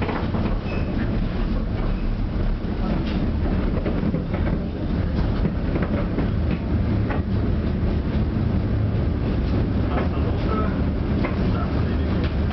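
Tram running on its rails, heard from inside the car: a steady low rumble with scattered clicks and rattles.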